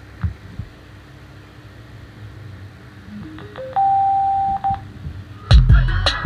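A TDA7492P Bluetooth amplifier board's prompt beeps played through two 4.5-inch Apple HomePod woofers: three short beeps rising in pitch, then one steady beep lasting about a second. Near the end, music with heavy bass starts through the woofers.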